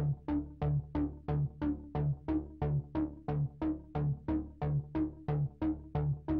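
Background electronic music with a steady synth beat, about three notes a second.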